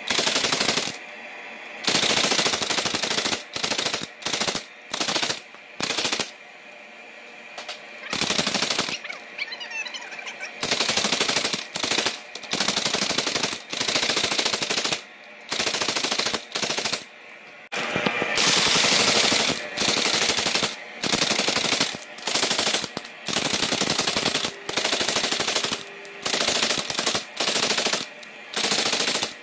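Power hammer pounding a red-hot Dane axe blank held in tongs, forging out the blade. The blows come in rapid bursts of about a second each, with short pauses between, and one longer run about 18 seconds in.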